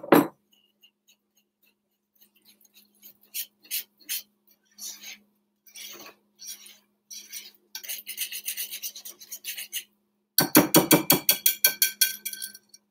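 Wire whisk beating batter in a glass mixing bowl, the wires scraping and clinking against the glass: slow, uneven strokes at first, then quick, even whisking about ten seconds in, the loudest part, working the lumps out of the batter.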